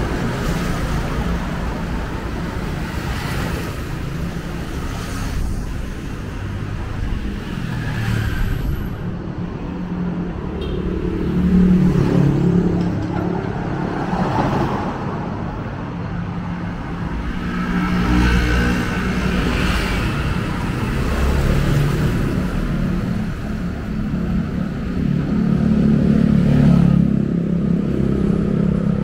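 City street traffic: cars and other motor vehicles running and passing close by over a steady low engine rumble. Several pass-bys swell and fade, the loudest about twelve seconds in and near the end.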